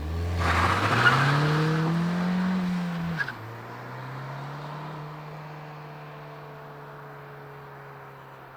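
A Ford Fiesta ST's turbocharged 1.6 EcoBoost four-cylinder launching hard from a standstill with tyre noise, its engine note climbing for about three seconds. The note then drops sharply at a gear change and holds steady as the car pulls away and fades.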